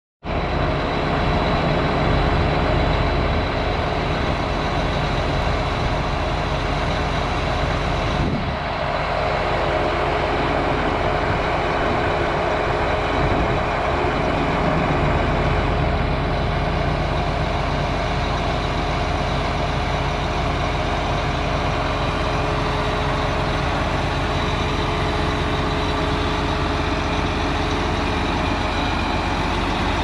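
John Deere 8245R tractor's six-cylinder diesel engine idling steadily, a low rumble with a faint steady high whine over it.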